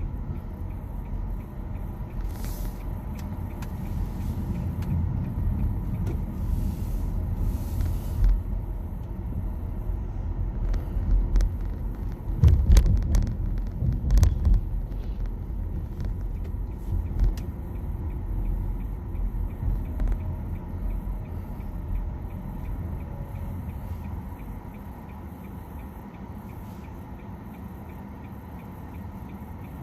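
Road and tyre noise inside the cabin of a 2021 Nissan Leaf electric car on the move: a steady low rumble with no engine note, and a few louder low thumps about halfway through. It grows quieter for the last few seconds.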